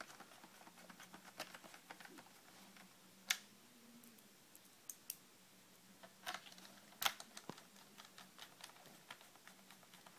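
Small scattered clicks and taps of a screwdriver and screws against a laptop's plastic back panel as the panel screws are driven in, with sharper clicks about three seconds in and again about seven seconds in.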